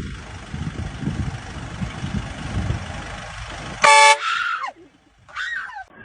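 Vehicle running noise, then a short, loud car horn honk about four seconds in, followed by two short falling squeals.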